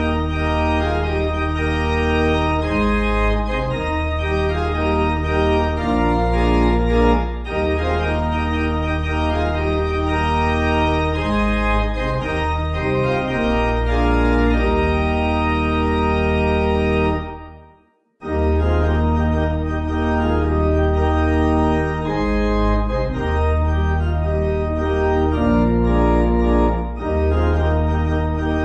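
Organ playing a hymn accompaniment in held chords over a steady bass, with no singing. About two-thirds of the way through it fades out, stops briefly and starts again.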